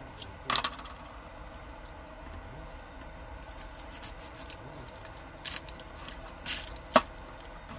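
Knife cutting a red onion on a plastic cutting board: a few scattered clicks and scrapes, the sharpest one about seven seconds in.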